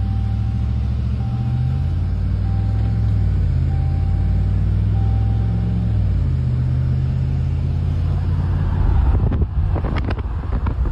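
Loud motor vehicle engine running at idle, its pitch shifting a little partway through, with a single-tone beep repeating five times, about once every 1.2 seconds, over the first six seconds. Several irregular knocks come near the end.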